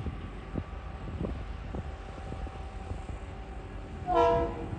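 Diesel locomotive's low, steady rumble as it approaches, then a short blast on its horn about four seconds in, lasting about half a second: the warning sounded for the level crossing.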